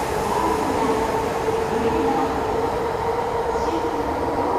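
E5-series Shinkansen train running past the platform as it pulls out of the station: a steady rush of running noise with a constant hum.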